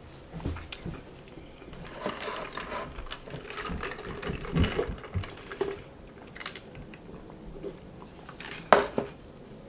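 Sipping a drink through a straw from a paper soft-drink cup, with small clicks and rustles of handling. A single sharp knock near the end as the cup is set down on the table.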